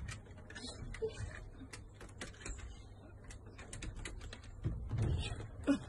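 Scattered light clicks and taps as an Alaskan malamute shifts about inside a wire pet pen on wooden decking, with a louder muffled sound near the end.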